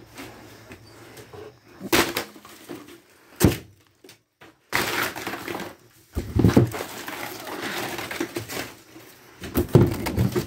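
Claw hammer striking and breaking out thin wood paneling from a camper wall: several sharp blows, with cracking and splintering of the wall board between them.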